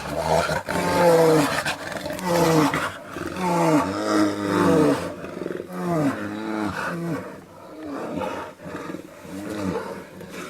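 A large animal calling over and over, a series of deep pitched calls about once a second that grow shorter and quieter toward the end.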